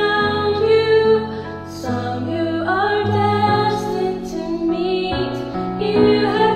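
A woman singing a slow song in held notes, her voice layered with a second vocal part of her own, over instrumental backing.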